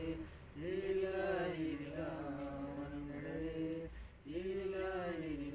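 A man chanting a prayer in long, drawn-out phrases, breaking off briefly about four seconds in before going on.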